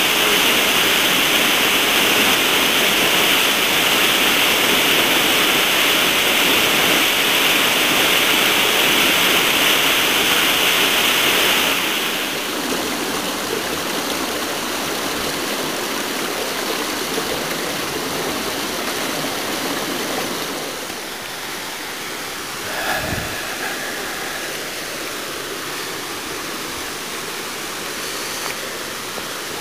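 Waterfall and rocky mountain stream rushing steadily, loudest for the first twelve seconds and then softer. A single brief thump about two-thirds of the way through.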